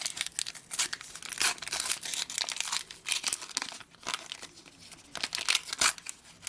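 Plastic trading-card pack wrapper crinkling and tearing as a pack is opened and handled, a run of irregular crackles.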